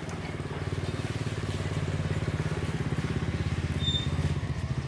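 A small engine running steadily with a low, fast-pulsing hum.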